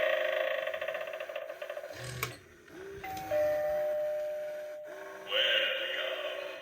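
Animated eyeball doorbell Halloween prop playing its electronic sounds: busy music and effects fade over the first two seconds. A click comes about two seconds in, then a ding-dong chime, a higher note followed by a lower one that both ring on and fade. A new burst of its sound effects starts near the end.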